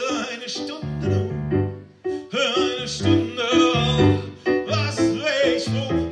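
Piano playing rhythmic chords under a male singing voice, a chanson performed live.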